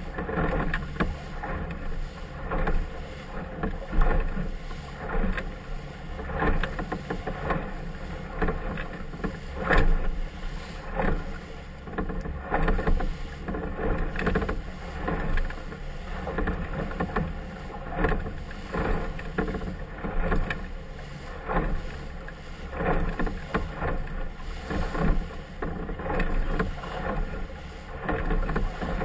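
Committee motorboat running through choppy water: a steady engine drone under the rush of water, with the hull slapping on the waves every second or two, and wind buffeting the microphone.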